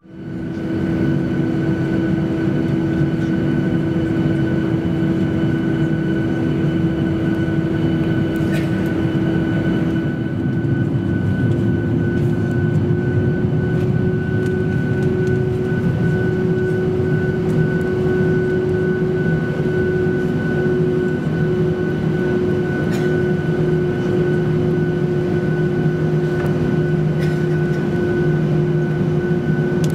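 Jet airliner engines running at high power, a steady loud hum with a clear tone that rises slightly in pitch about ten seconds in.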